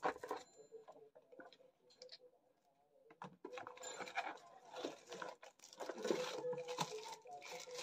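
Paper and plastic packaging rustling and crinkling as it is handled and lifted out of a box. It starts about three seconds in, after a quiet stretch with a few light clicks.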